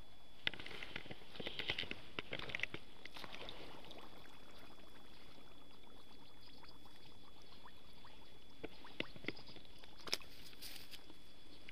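Small splashes, drips and rustles as a just-landed small crucian carp is handled in shallow water and wet grass at the bank. The sounds come in short, scattered bursts, busiest in the first few seconds and again near the end.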